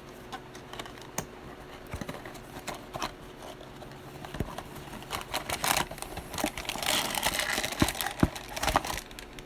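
Cardboard blind box and its plastic packaging being handled and opened by hand: scattered light clicks and taps, then a stretch of rustling and crinkling about halfway through.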